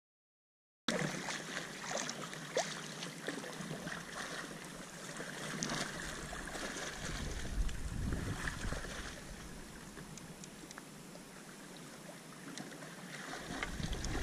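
Silent for about the first second, then water lapping and splashing around a float tube, with many small clicks and drips. Wind buffets the microphone in the middle and again near the end.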